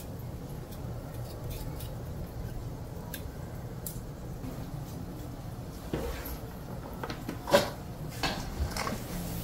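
Small kitchen knives scraping and splitting fresh bellflower (doraji) roots, heard as faint ticks, then a few louder knocks and clinks of the stainless steel colander and bowls as the strips are handled, the sharpest about seven and a half seconds in.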